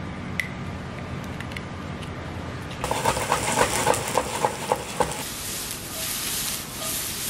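An egg cracks once against a glass bowl. Then a chef's knife chops garlic on a wooden cutting board in quick strikes, about five a second for two seconds. Near the end, food sizzles in a frying pan.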